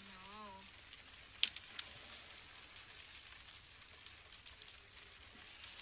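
Muddy volcanic ash rain pattering on a car's windshield and roof, heard from inside the car: scattered sharp ticks of impacts over a steady hiss, the loudest about one and a half seconds in.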